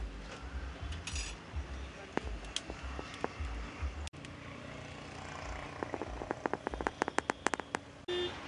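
Busy roadside street ambience: background voices and traffic rumble, with a quick run of clicks about six to eight seconds in and a vehicle horn tooting right at the end.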